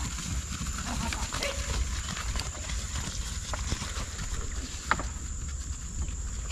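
Wind buffeting the microphone in a flickering low rumble, with a steady high whine above it. A few sharp knocks come through, the loudest about five seconds in.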